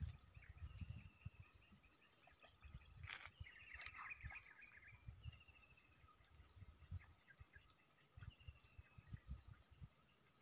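Faint outdoor quiet with bird calls: a short, slightly falling trill that comes back about four times, with a busier burst of chirps around the middle, over a steady high insect buzz. Low rumbles from wind or handling on the microphone come and go.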